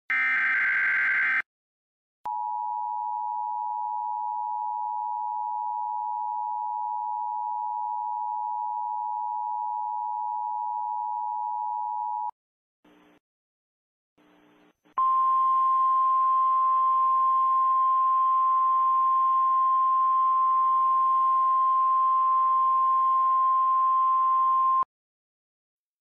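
Emergency Alert System tones: the last buzzy SAME data burst of the header, then the two-tone EAS attention signal held for about ten seconds. After two brief faint blips, a single steady NOAA Weather Radio-style alert tone sounds over hiss for about ten seconds and cuts off.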